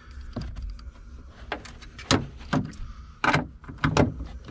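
Hand ratchet and socket working a taillight retaining nut, an irregular series of sharp clicks and knocks, strongest about two seconds in and again between three and four seconds.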